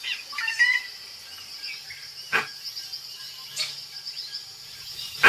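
Forest ambience: a steady, high insect drone, with bird chirps in the first second and a few sharp clicks.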